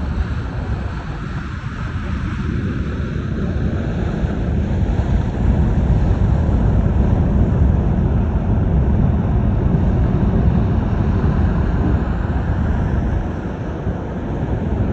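Wind buffeting the microphone over the wash of ocean surf: a loud, low, even rumble that grows louder about five seconds in and eases near the end.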